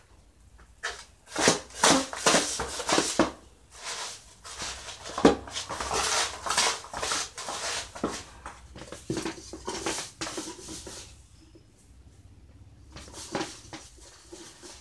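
Handfuls of gritty wet cement mortar being scooped from a plastic basin and packed by hand onto wire mesh: an irregular run of crunching and scraping, busiest in the first ten seconds, then fainter with a few more scrapes near the end.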